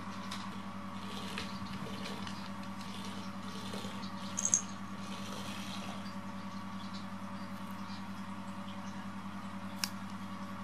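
A steady mechanical hum with a fine rapid pulse, like a small motor running. A brief high squeak comes about four and a half seconds in, and a sharp click near the end.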